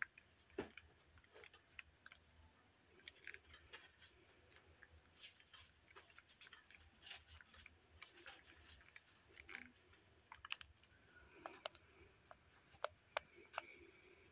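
Near silence with faint, irregular small clicks and taps, coming more often in the second half.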